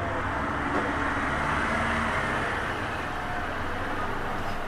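Steady road traffic noise: the hum and rumble of passing vehicles, with no distinct knocks or strikes.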